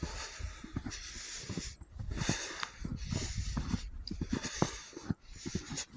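Footsteps crunching through fresh, deep snow at about one step a second, with a low rumble underneath.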